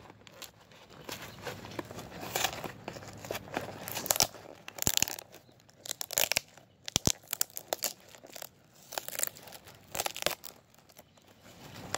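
Cardboard shipping box torn open by hand, with its paper packing crinkling, in irregular bursts of tearing and rustling.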